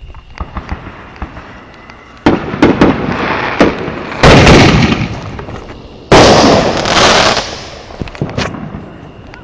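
Consumer fireworks going off. Scattered cracks come first, then a loud burst a little over two seconds in, then two louder booms at about four and six seconds, each trailing off in crackling.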